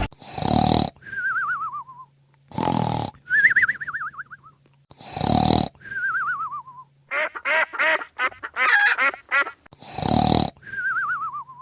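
Cartoon snoring sound effect: a snore about every two and a half seconds, each followed by a falling, warbling whistle, with a quick run of grunting noises in the middle.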